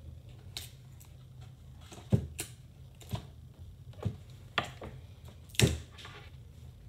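Paper and sticky tape being handled: scattered light clicks and taps, about six of them, sharpest near the middle, over a low steady hum.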